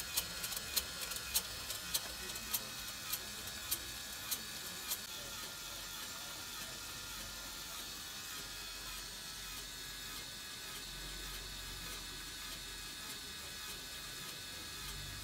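Gear-driven multi-skewer barbecue rotisserie turning, a steady mechanical whir with a sharp tick from its gears a little under twice a second; the ticking stops about five seconds in while the whir carries on.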